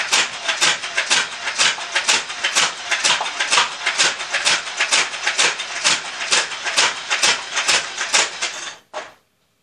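Nerf N-Strike Vulcan belt-fed dart blaster firing full auto: an even clatter of shots, about three a second, with darts hitting the boy and the floor. It stops suddenly about nine seconds in, with its 25-dart belt spent.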